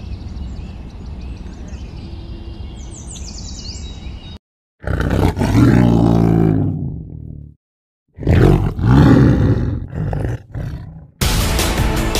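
Steady outdoor background with faint bird chirps, then after a sudden silent cut two long, loud, deep roars, each falling in pitch, one after the other. Music cuts in near the end.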